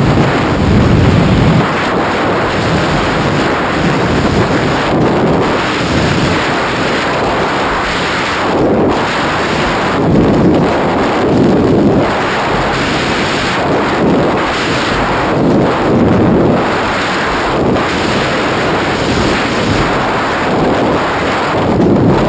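Freefall wind blasting over the camera's microphone: a loud, continuous rush with uneven gusts of buffeting every second or two.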